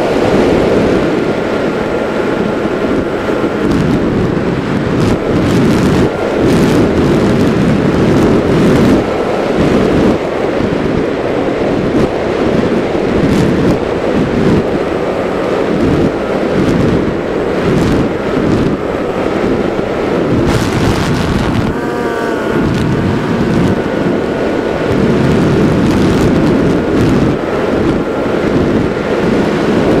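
Wind rushing over an RC flying wing's onboard camera microphone in fast flight, with a faint steady propeller-motor whine underneath that wavers in pitch about two-thirds of the way through as the throttle changes.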